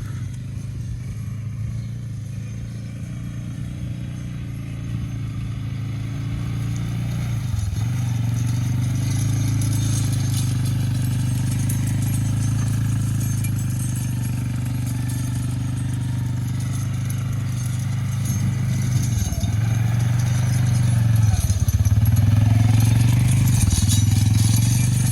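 Four-wheeler (ATV) engine running as it tows a tire-weighted harrow drag across a pasture. Its note dips briefly a few times in the second half, and it grows louder toward the end as it comes closer.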